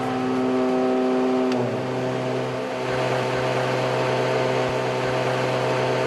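Twin piston-engine Shrike Commander heard from the cockpit in flight. The steady engine drone changes pitch about one and a half seconds in, with a click, as one engine is shut down and its propeller stopped, and the other engine runs on steadily.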